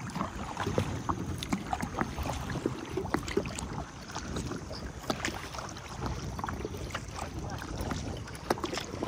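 Kayak paddle strokes splashing in seawater, with scattered small splashes and drips at an irregular pace, over a low rumble of wind on the microphone.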